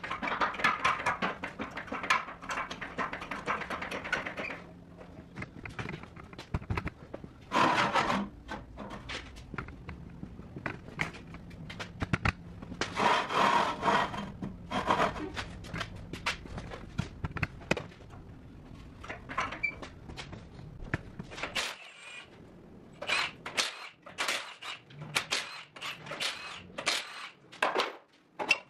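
Metal clanks, knocks and scrapes of a floor jack and steel jack stands being worked under a pickup truck, in irregular bursts with a busy run of sharp clicks near the end.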